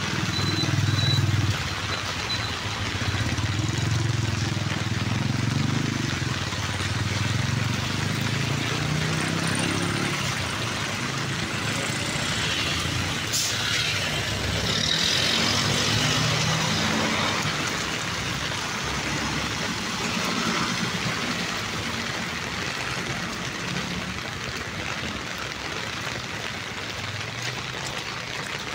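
Road traffic: vehicle engines running as cars and trucks pass, with a rumble that rises and falls, and one sharp click about thirteen seconds in.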